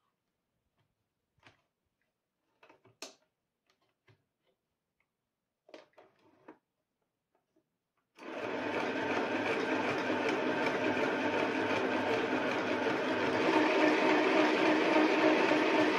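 Compact electric sewing machine (FHSM-505B-NSET) starting up about eight seconds in and running steadily as it stitches fabric, a little louder from about five seconds later. Before it starts, only faint clicks and rustles of the cloth being positioned.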